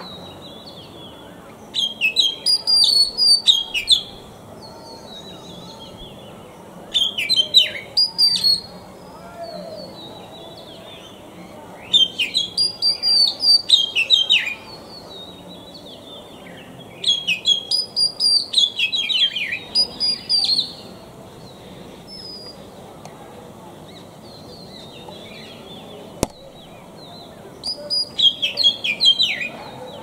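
Male oriental magpie-robin singing: five separate phrases of a few seconds each, made of varied clear whistles and quick notes, with pauses of a few seconds between them. A single sharp click near the end.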